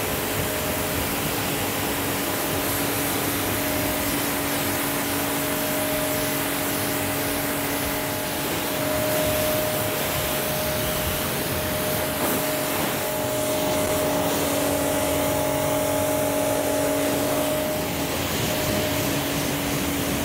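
Pressure washer running steadily: a constant hum from its pump motor under the hiss of the water jet striking the car's paintwork as the shampoo is rinsed off.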